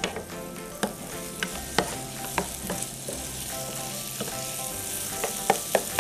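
A cuttlefish, broccoli and boiled-potato filling sizzling in a frying pan over raised heat while a spoon stirs it. The spoon knocks against the pan in irregular sharp taps, several in quick succession near the end.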